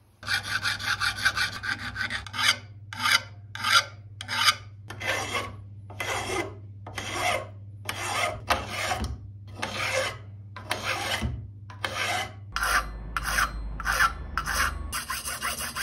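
Hand file scraping back and forth on a brass part held in a vise. First a quick flurry of short strokes, then slower, even strokes about one and a half a second, and quicker strokes again near the end.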